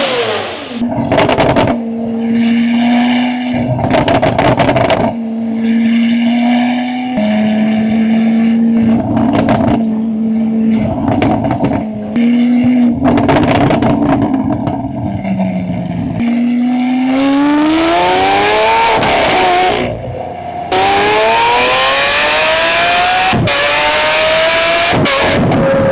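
Lamborghini Aventador V12 through a Valvetronic full exhaust system, held at steady revs in short stretches with abrupt breaks. About two-thirds through it revs up in rising sweeps, and it is loudest in the last few seconds.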